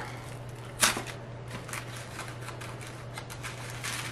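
Green tissue paper crinkling and rustling as a wrapped bundle is unsealed and opened by hand, with one sharper crackle about a second in.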